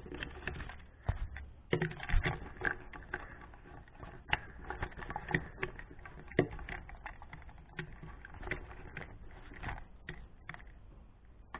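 Irregular light clicks and taps of plastic toy train engines being handled and pushed by hand.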